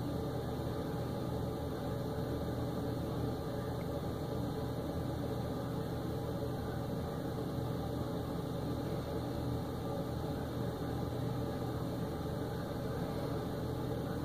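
Flatbed tow truck's engine idling steadily, with no distinct knocks or changes.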